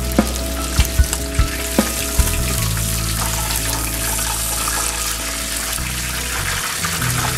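Hot oil sizzling in a wok as a whole fried fish is lifted out with a metal spatula and spoon; the utensils click against the pan several times in the first two seconds.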